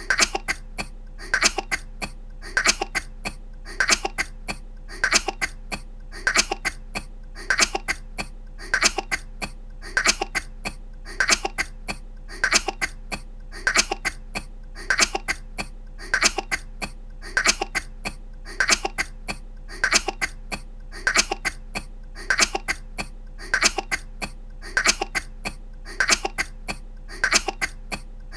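A woman's small coughs: the same short clip looped over and over, a quick cluster of two or three coughs about every second and a quarter.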